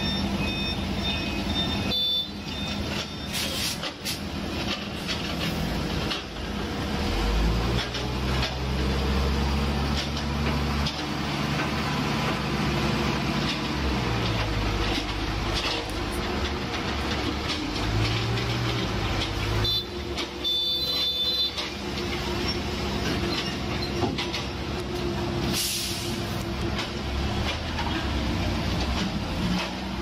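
Diesel engines of asphalt-paving machinery running, with a Bobcat S130 skid-steer loader revving up and down as it works. Reversing beeps sound briefly near the start and again about two-thirds of the way in.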